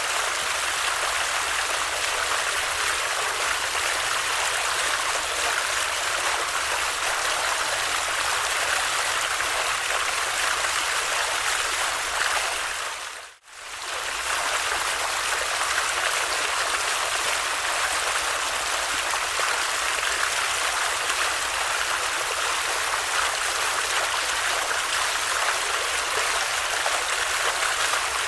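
Steady rushing of a flowing water stream. About halfway through it fades out briefly and comes straight back in.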